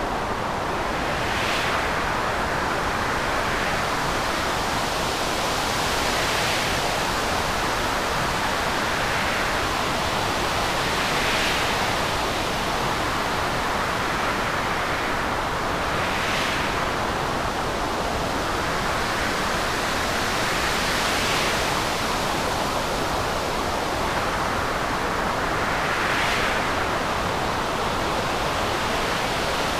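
Stormy sea: a dense, steady rush of surf, with a wave surging up and breaking about every five seconds.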